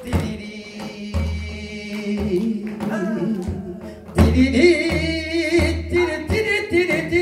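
A man singing a Korean traditional (gugak) song through a microphone, his voice bending and wavering, with janggu hourglass-drum accompaniment of deep booming strokes and sharp stick strikes. Voice and drum grow louder about four seconds in.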